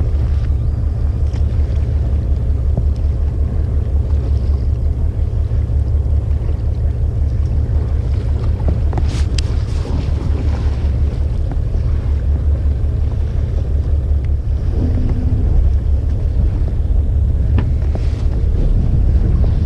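Wind buffeting the microphone as a steady, low, fluttering rumble, with a few faint clicks about nine seconds in and again near the end.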